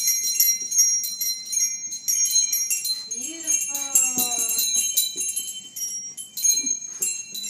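Small jingle bells on wrist and ankle bands jangling without a break as two toddlers dance and stamp, with a brief voice calling out about halfway through.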